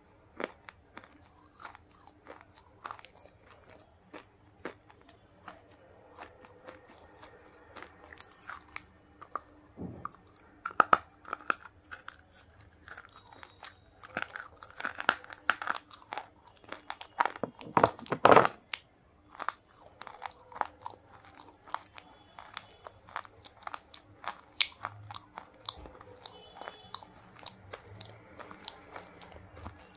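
Close-miked biting and chewing of a hard, dry pink chalk-like bar: crisp crunches and crackles throughout, loudest in a run of bites in the middle.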